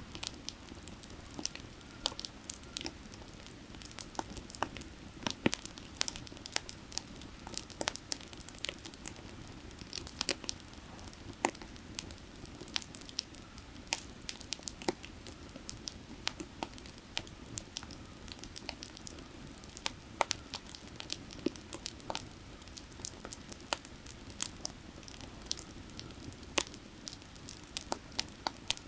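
Firewood burning, crackling with many irregular sharp pops, over a steady low rush of creek water.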